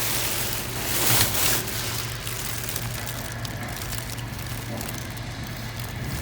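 Steady background noise with a low hum, and a brief rustle about a second in.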